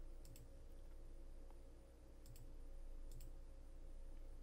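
A few faint computer mouse clicks, each a quick double tick of press and release, over a low steady hum.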